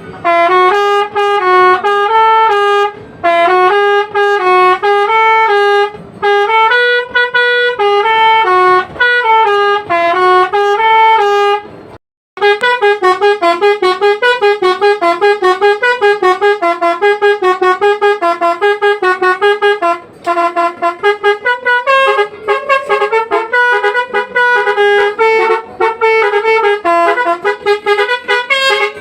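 Telolet basuri musical horn on a bus playing a melody of loud horn notes stepping up and down in pitch. About twelve seconds in it cuts off for a moment, then resumes with a faster tune of short, rapidly repeated notes.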